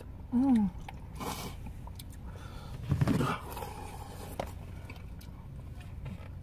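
People eating soup: slurping broth and chewing, with the loudest slurp about three seconds in. A short hum that rises and falls in pitch comes just after the start.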